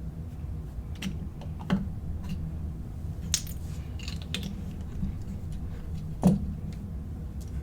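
Lego bricks being handled and pressed together: scattered small plastic clicks and rattles, the loudest about six seconds in, over a steady low hum.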